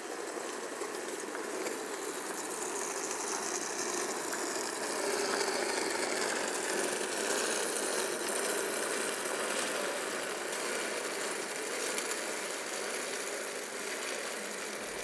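Steady rattling noise of wheeled instrument cases rolling across a concrete floor, with footsteps.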